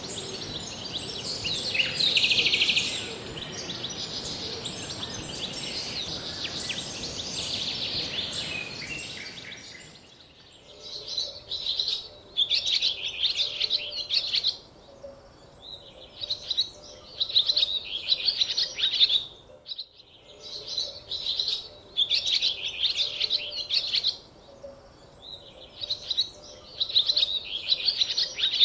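Small birds singing in repeated chirping phrases of a second or two each with short pauses between them. A steady hiss of background noise lies under the first ten seconds and then drops away, leaving the song clear.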